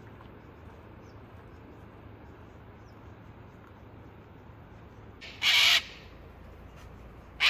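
Harsh crow-like caws from a corvid: one loud call about five seconds in and another starting right at the end. A steady low rumble from the moving car runs beneath them.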